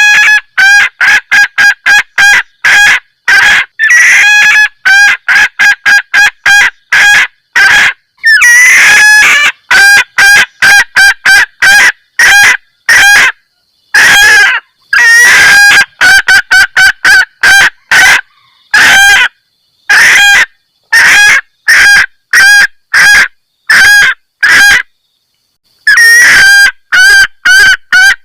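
Female junglefowl giving a rapid 'kek-kek' cackle: runs of short, loud, clipped notes with brief pauses between runs. It is the hen's mating call used as a lure to draw in cocks.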